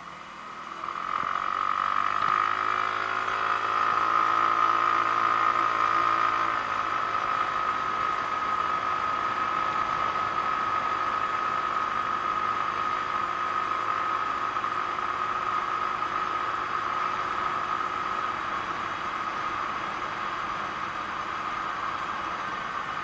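Genuine Buddy 125 scooter's single-cylinder four-stroke engine under way. It picks up about a second in as the throttle opens, eases off slightly a few seconds later, and runs steadily from then on with a constant high whine.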